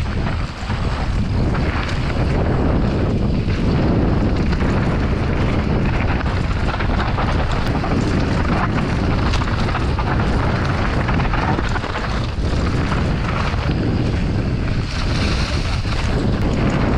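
Mountain bike descending dirt singletrack: wind buffeting the microphone mixes with knobbly tyres rolling over dirt and dry leaves, and the bike rattles and clicks over bumps. The sound is loud and unbroken.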